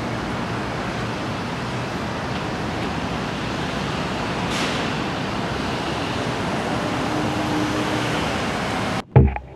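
Steady city street traffic noise, an even wash of passing cars. About nine seconds in it cuts off abruptly and sharp drum hits begin.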